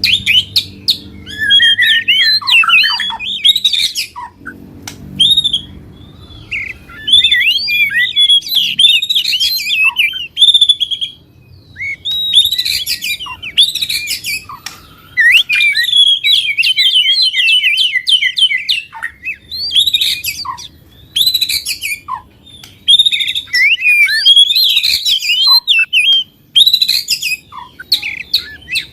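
Songbirds singing loud, rapid chirping and trilling phrases in bursts of a few seconds with short pauses between. This is a mix of competitive 'fighter' songbird songs of the kind played to provoke a caged bird into singing.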